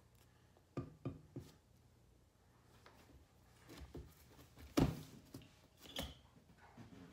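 Metal utensils clinking and scraping on a ceramic plate: three light taps about a second in, then two louder knocks later on, the last with a brief ring.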